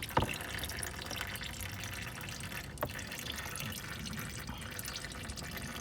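Used engine oil pouring in a steady stream from the oil-pan drain hole of a 2011 Porsche Panamera 4S into a drain pan. There is a short click just after the start and another about three seconds in.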